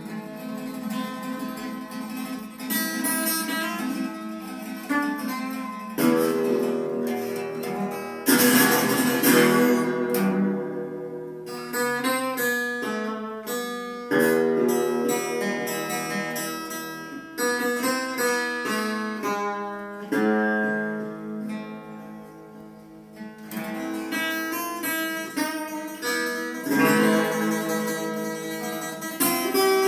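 Acoustic guitar and a second plucked string instrument playing an instrumental passage together: picked notes, with loud strummed chords about a third of the way in and again near the end.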